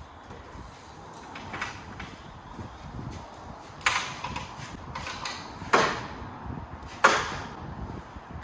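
Sharp metallic clanks from handling hardware against the sheet-steel panels, ringing briefly after each. A few faint knocks come first, then three loud ones about a second and a half apart in the second half.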